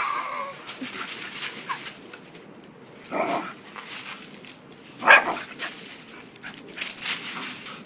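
Dry leaves crunching and rustling underfoot in repeated crackles, with a dog giving two short barks, the louder about five seconds in.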